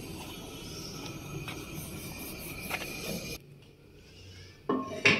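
Wooden rolling pin rolling out paratha dough on a round wooden board: a steady rubbing rumble with faint ticks that stops abruptly about three and a half seconds in. Two short, sharp sounds follow near the end.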